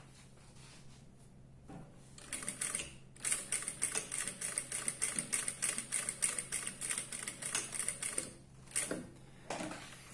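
Jack industrial lockstitch sewing machine running at slow speed, topstitching through synthetic leather and a zipper end. Its needle ticks in a fast, even run of about five stitches a second, starting about two seconds in and stopping about eight seconds in, with a single click shortly after.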